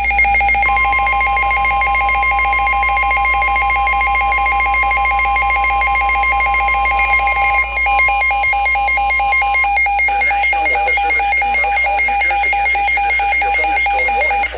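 NOAA Weather Radio warning alarm tone: a steady single 1050 Hz tone, starting just under a second in and stopping after about nine seconds. Underneath it, a constant buzzing interference carries on after the tone stops.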